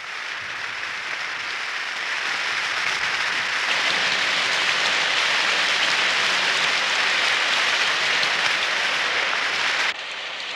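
Heavy rain pouring down in a steady hiss that builds over the first few seconds, then drops suddenly to a lighter level near the end.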